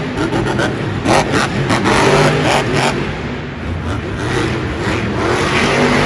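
Monster truck's engine revving hard in surges as it drives and jumps on a dirt arena course.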